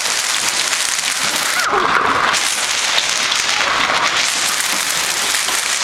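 Heavy hail with rain pelting down, a dense, steady clatter of countless small impacts. A brief mid-pitched sound rises above it about two seconds in.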